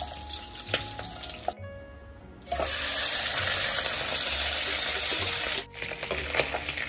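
Pork frying in a non-stick pan without oil: a loud, steady sizzle from about the middle, where wet raw pieces fry in their own liquid. Before and after, quieter sizzling with a slotted spoon clicking and scraping against the pan.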